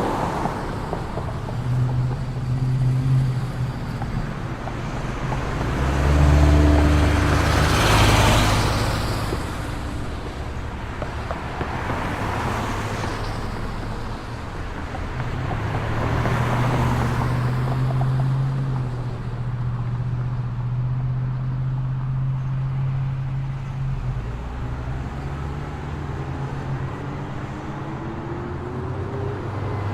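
Street traffic: cars passing one after another over a steady engine hum. The loudest pass, about six to eight seconds in, carries a deep rumble, and near the end an engine rises in pitch.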